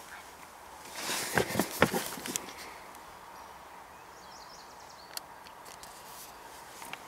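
A short run of rustling with four or five sharp knocks, between about one and two and a half seconds in, over a low steady background.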